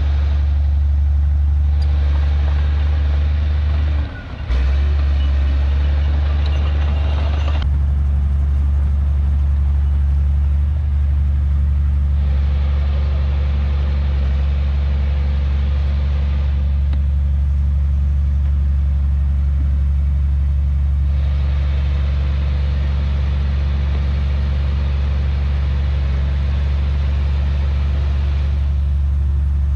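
Heavy diesel earthmoving machinery engine running steadily under load. A brighter, noisier layer comes and goes over it in several stretches, and the level drops briefly about four seconds in.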